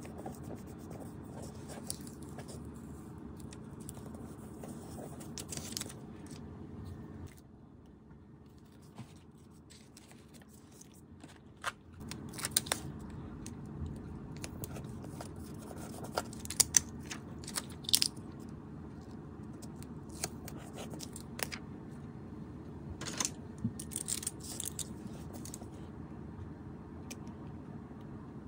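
Paper and clear sticker sheets being handled, peeled and pressed down by hand: scattered crinkles, rustles and light taps with sharper crackles now and then, over a steady low background hum.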